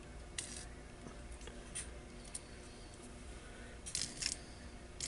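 Small metal screws clicking and rattling in a plastic compartment organizer as they are picked through. A few light, separate clicks, with a quick cluster of them about four seconds in.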